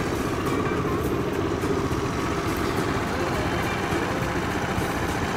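Piaggio Typhoon 50cc scooter engine idling steadily.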